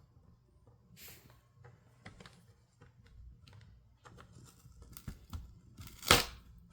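Small clicks and scrapes of a plastic spudger and hands working a laptop screen panel loose from its adhesive tape, with one louder rasping scrape about six seconds in.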